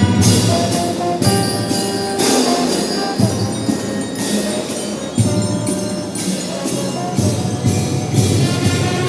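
School marching drum band playing a tune: sustained melody notes over a steady beat of drums and cymbal-like hits.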